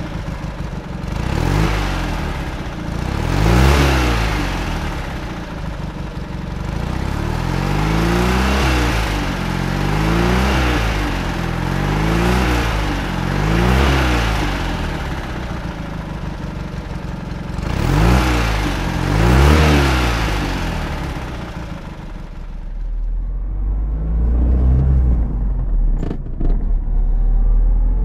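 1963 NSU Sport Prinz's small air-cooled two-cylinder engine being revved again and again, each blip rising and falling in pitch, with two bigger revs near the middle. It settles to a lower steady running near the end.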